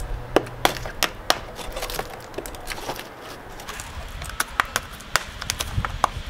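A thin metal tool picking and scraping rotted wood out of the corner of a wooden column base: irregular sharp clicks and scratches as crumbling pieces break away, in a few bursts with a quieter stretch in the middle.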